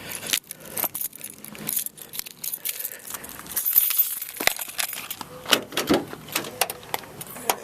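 A bunch of car keys jangling and clinking as they are handled, with scattered sharp clicks and knocks.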